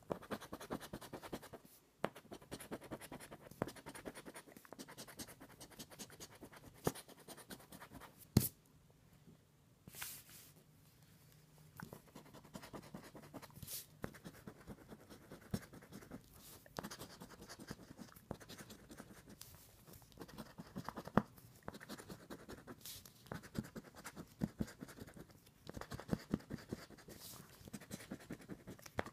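Scratch-off lottery ticket being scraped off in quick runs of short strokes, with brief pauses between runs. A single sharp tap about eight seconds in is the loudest moment, followed by a short pause.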